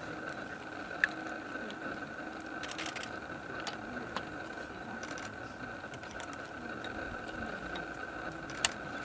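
Camera shutters clicking: a single sharp click about a second in, a quick burst of several clicks around three seconds, and another sharp click near the end, over a steady faint background hiss and hum.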